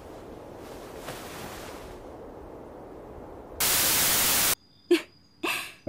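A burst of TV-style static: a loud, even hiss about a second long that starts about three and a half seconds in and cuts off suddenly. Before it there is low background noise, and after it two short faint sounds.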